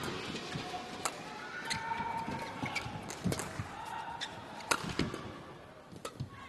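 Badminton rally: about half a dozen sharp racket strikes on the shuttlecock, roughly one a second, with shoes squeaking on the court floor between shots over a murmur of the hall.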